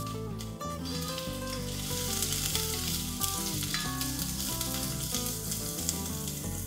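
Diced carrots and onions sizzling as they fry in a nonstick pot. The sizzle grows louder about two seconds in, and a plastic spoon stirs and scrapes through the vegetables.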